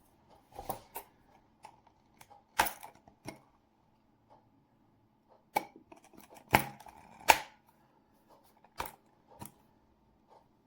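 Scattered sharp clicks and knocks, about nine at uneven intervals, from the parts of a manual coffee grinder being handled; the loudest two come close together about two-thirds of the way in.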